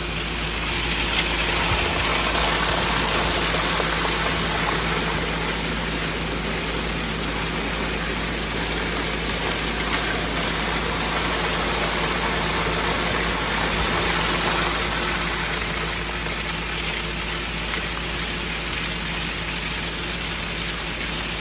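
Concrete mixer truck running, its engine humming under a steady rushing gush of wet concrete sliding down the chute into the trench.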